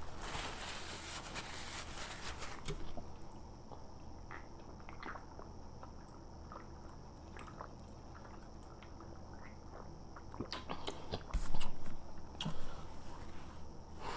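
Soft chewing and mouth noises close to the microphone, with scattered small clicks and a few louder knocks and rustles near the end.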